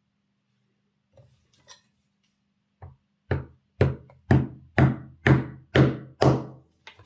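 A small hammer tapping a bush into a model locomotive wheel: a run of about eight sharp, evenly spaced taps, roughly two a second, after a couple of faint knocks.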